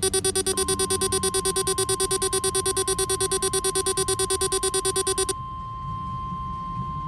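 NOAA Weather Radio warning alarm test: a rapidly pulsing electronic alert buzz, joined about half a second in by the steady 1050 Hz warning alarm tone. The pulsing cuts off about five seconds in, leaving the single steady tone.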